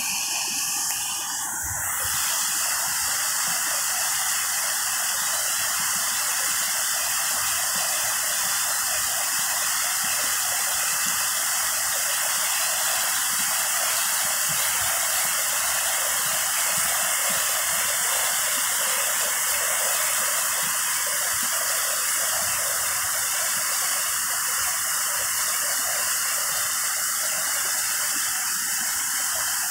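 Muddy floodwater of a swollen creek rushing over rock ledges and rapids: a steady, unbroken rush of water. The creek is in flood after heavy overnight thunderstorm rain.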